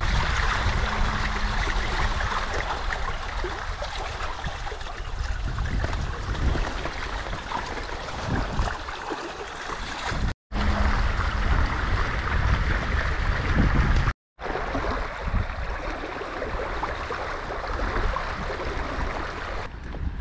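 Water rushing and splashing along the hulls of an inflatable catamaran under sail, with wind rumbling on the microphone. The sound breaks off for a split second twice.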